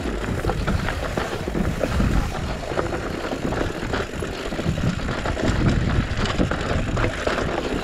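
Mountain bike clattering down a rough downhill trail: tyres over loose rock and gravel, with a constant patter of small knocks and rattles from the bike.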